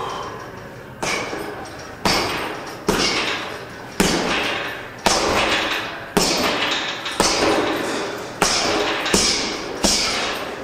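Gym weights clanking in a steady rhythm: about nine sharp clanks, roughly one a second, each ringing out briefly.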